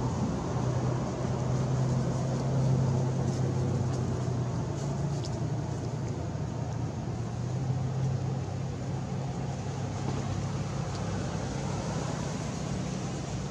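Steady low hum of an engine running, rising and easing slightly in strength, over a constant background hiss.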